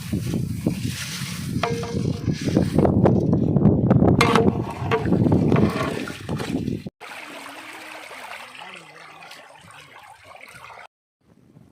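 Rice being poured into a large cooking pot of water: a loud splashing rush of grains and liquid that cuts off abruptly about seven seconds in, followed by a much quieter stretch.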